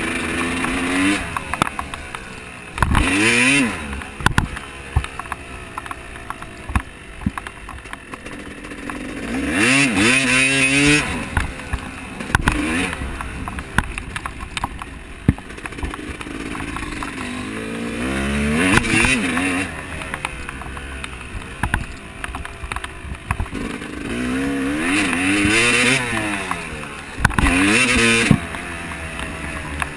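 Off-road dirt bike engine revving hard four times, its pitch climbing and falling with each surge, running lower in between, with scattered sharp clicks and knocks.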